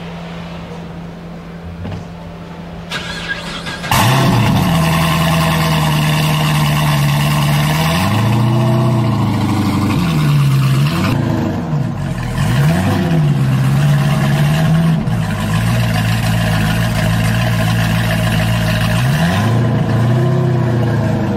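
Mazzanti Evantra's 7.0-litre naturally aspirated V8 starting up: a steady low hum, then the engine catches loudly about four seconds in and idles, blipped several times with the pitch rising and falling.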